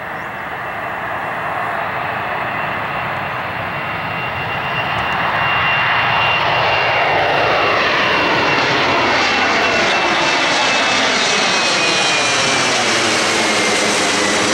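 Twin-engine jet airliner climbing out overhead after takeoff. The engine noise grows louder over the first five seconds, then holds loud and steady, with a high whine sliding slowly down in pitch as the jet passes.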